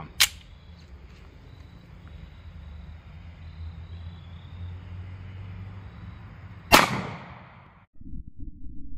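A single shot from a 10mm Colt Delta Elite 1911 with a 5-inch barrel, firing a PMC Bronze 170-grain hollow point into a gel block; it cracks sharply about two-thirds of the way through and dies away within about a second. A sharp click comes just after the start, and near the end the sound cuts to a muffled, low-pitched noise.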